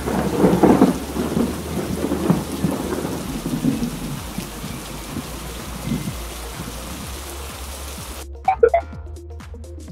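Thunderstorm sound effect: steady hiss of heavy rain with a rumble of thunder over the first few seconds. The rain cuts off suddenly about eight seconds in, followed by a brief loud pitched blip.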